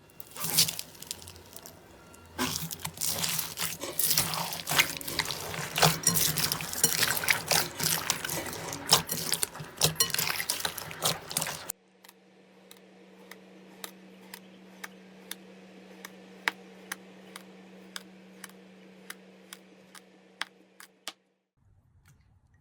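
Slime being squeezed and worked by hand, with dense wet crackling and popping. About halfway it changes abruptly to a steady low hum with soft clicks or pops, about two to three a second.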